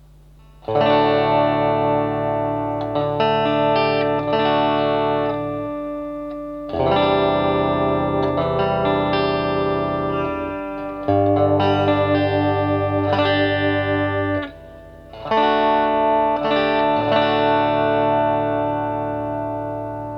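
Electric guitar, a DIY Telecaster-style build, playing full chords that are struck and left to ring, a new chord about every four to five seconds with a few lighter restrikes in between.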